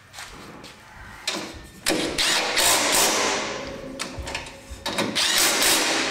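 Thin sheet-metal exhaust heat shield scraping and rattling against the exhaust as it is worked into place by hand, in two long stretches.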